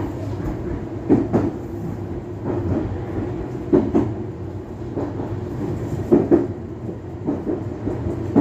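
Meitetsu Inuyama Line electric train running, heard from inside the car: a steady rumble broken by repeated pairs of clacks as the wheels cross rail joints.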